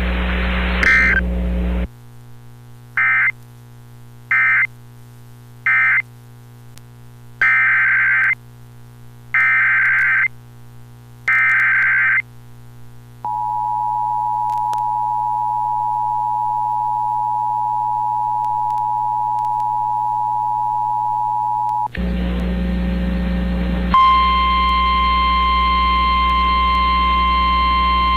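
Emergency Alert System data and alert tones: three short bursts of SAME digital data, the end-of-message code, then three longer SAME header bursts, then the steady two-tone EAS attention signal (853 and 960 Hz together) for about nine seconds. The hissy weather-radio feed then returns, and about two seconds later a steady single-pitch tone starts, the 1050 Hz NOAA Weather Radio warning alarm tone.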